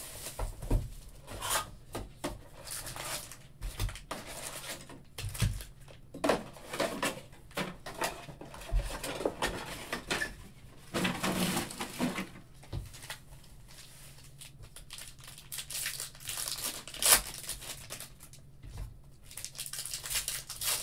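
Foil wrappers of Panini Prizm football card packs being torn open and crinkled, with packs and cards handled and set down in a run of irregular rustles and taps. One sharper snap stands out about three-quarters of the way through.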